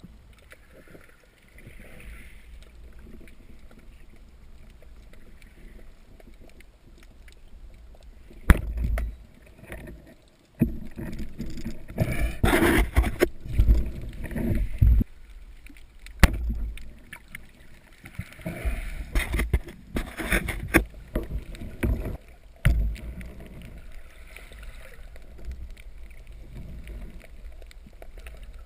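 Water sloshing and gurgling around a spearfisher's camera, with several louder splashing bursts.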